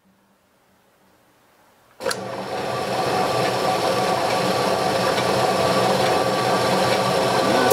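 Horizontal metal-cutting band saw switched on about two seconds in, then its motor and blade running steadily, getting slightly louder.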